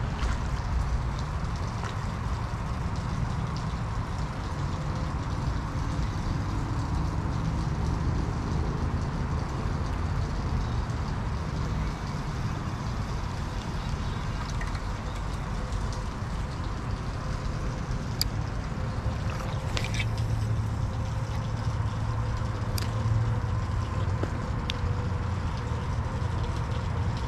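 Steady low rumble of outdoor background noise, with a few faint clicks in the second half.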